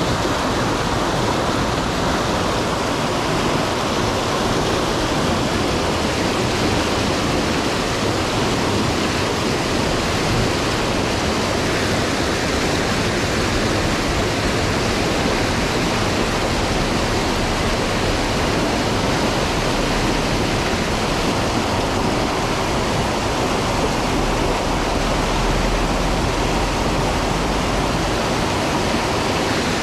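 Rapids of a fast river rushing over and around boulders: a steady, loud white-water noise.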